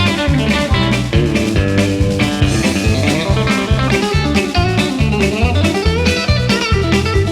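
Background music: a blues-style tune led by a guitar, with string bends over a steady bass and drum beat.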